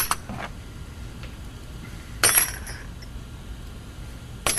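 Loose steel drill bits clinking against one another and the bench as they are handled and sorted, three sharp metallic clinks about two seconds apart.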